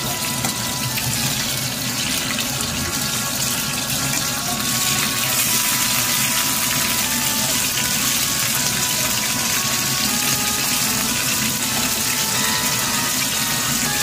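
Coated fish fillets frying in hot oil in a pan, a steady sizzle that grows a little louder about five seconds in.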